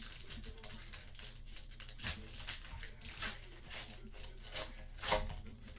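Plastic and foil wrapping on packs of football trading cards crinkling and tearing as they are opened, in a string of short rustles, the loudest about two seconds in and near the end.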